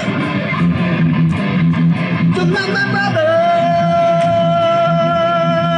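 Small live band playing: electric guitar through an amplifier with a man singing into a microphone. About three seconds in, a single long note is held steadily.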